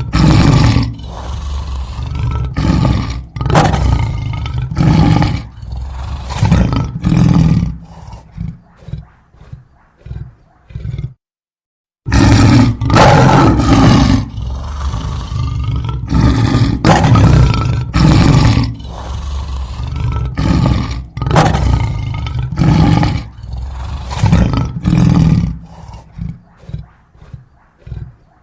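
Lion roaring: two roaring bouts, each opening with loud, deep full roars and trailing off into shorter, fainter grunts, with about a second of complete silence between them around eleven seconds in.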